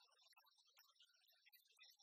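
Near silence, with only a faint high-pitched background.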